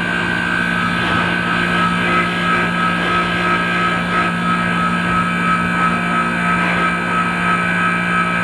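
Manitowoc ice machine running: a steady mechanical hum with two steady high-pitched tones held over it.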